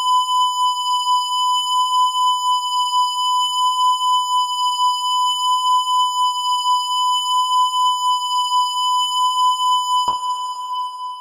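Synthesized electronic warning-siren tone, made to imitate how an ATI electronic siren should sound: one steady, loud high tone that wavers slightly. About ten seconds in it cuts off with a click and its echo fades away.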